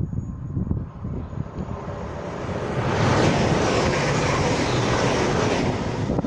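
A train passing through the station at speed: a rushing roar builds about two and a half seconds in, holds for about three seconds and falls away near the end. Wind buffets the microphone throughout.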